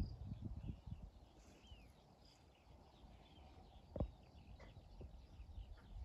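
Quiet outdoor ambience with small birds chirping faintly. Soft low thumps of footsteps on grass come in the first second, and a single thump comes about four seconds in.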